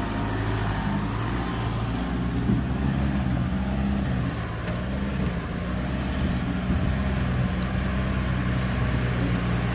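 Land Rover Defender's engine running at low revs as the vehicle moves slowly, a steady low drone that rises and falls slightly in pitch.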